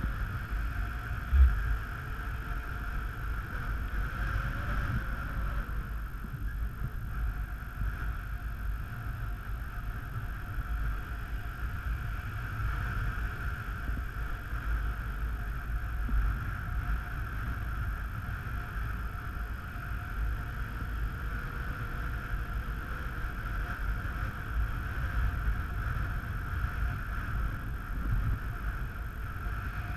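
Airflow buffeting the camera's microphone in paraglider flight: a steady low rumbling wind noise that swells and eases, with a single short knock about a second and a half in.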